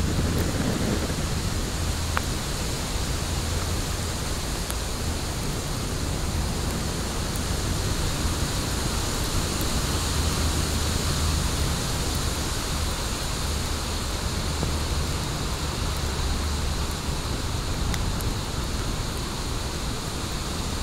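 Fire burning in a fire pit: a steady noisy burn with a low rumble beneath and a few faint, sharp crackles scattered through.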